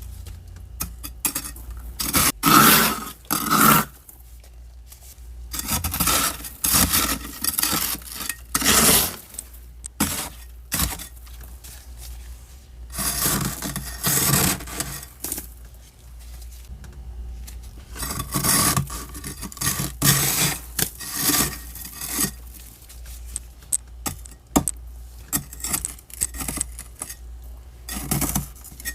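Thick frost being scraped off the inside walls of a deep freezer, in several noisy scraping strokes lasting one to four seconds each, with short clicks and knocks between them.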